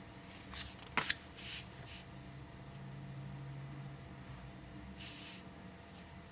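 Oracle cards being handled: a sharp click about a second in, then soft sliding swishes of card stock, once shortly after and again about five seconds in. The sounds are quiet.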